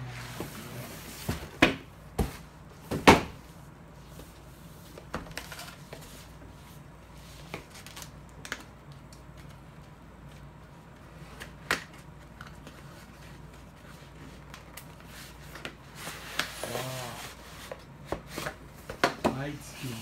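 Cardboard boxes being handled and pulled out of a shipping box: a few sharp knocks in the first few seconds, the loudest about three seconds in, then scattered scraping and knocking of cardboard.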